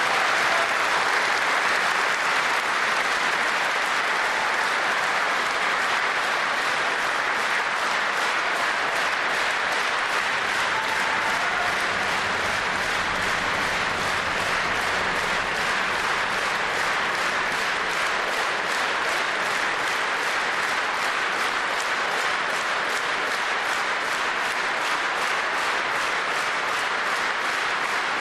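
A large crowd giving a long standing ovation, many people clapping at once; about halfway through the clapping falls into unison, in a steady beat.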